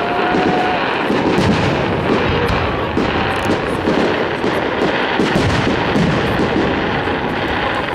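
Fireworks going off in a dense, continuous barrage: many bursts and crackling pops overlapping with no pause.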